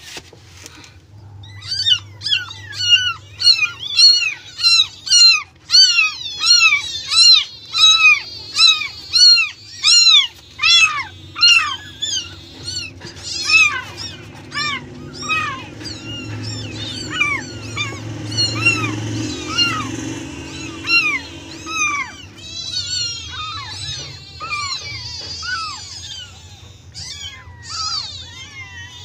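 A newborn kitten mewing over and over in short, high-pitched cries, about two a second, while it is fed milk from a syringe. About halfway through the cries grow weaker and more broken up.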